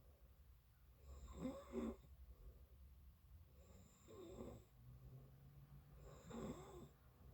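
A sleeping person snoring quietly: three snores about two and a half seconds apart, each carrying a thin high whistle.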